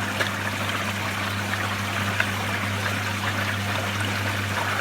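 Haier JW-K50H washing machine draining on its spin cycle: a steady low hum from the machine under water rushing and trickling, with water leaking out at the base of the drain hose.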